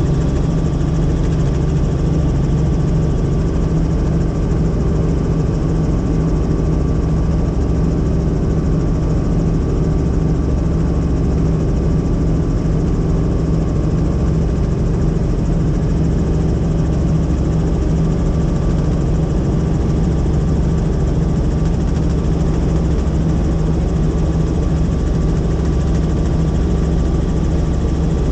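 Helicopter in flight: a steady engine and rotor drone with a thin, constant high whine over it, unchanging throughout.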